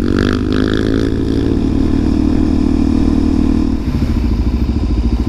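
Suzuki DR-Z400SM supermoto's single-cylinder four-stroke engine running under way. About four seconds in, the revs drop and the note turns lower and slower.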